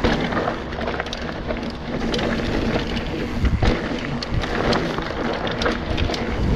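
Mountain bike rolling along a dirt and gravel trail: steady rushing of tyres and wind over the rider-mounted camera's microphone, broken by frequent short clicks and rattles as the bike runs over stones and bumps.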